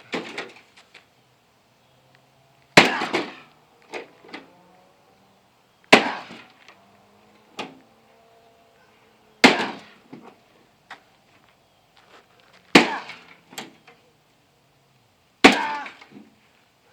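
A microwave oven being smashed with a hand weapon: five heavy blows, about one every three seconds, each followed by a few lighter knocks.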